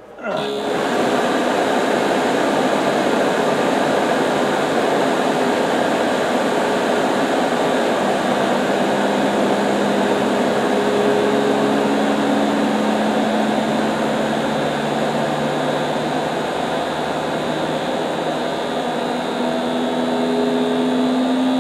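Automotive AC blower motor switching on under PWM speed control just after the start, then running steadily with a loud rush of air and faint humming tones that come and go and shift a little in pitch.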